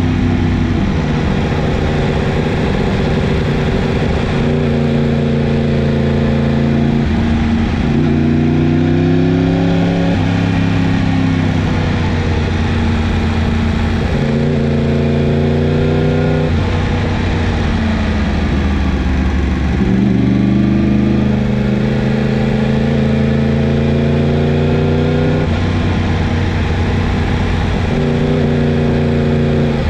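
Yamaha MT-10's crossplane inline-four engine under way on a twisty road, holding a steady pitch for stretches and then rising or falling as the rider rolls on and off the throttle. The pitch climbs around 8 to 10 seconds in, and drops then jumps back up around 20 seconds in, as at a gear change.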